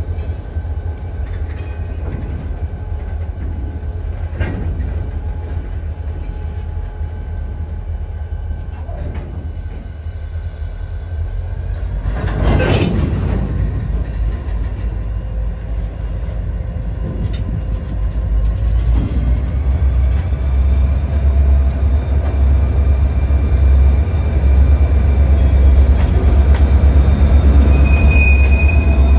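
CSX diesel locomotive running on a yard switching job, with a steady low rumble. About halfway through there is a short, sharp bang. Later the engine revs up with a rising whine and grows louder.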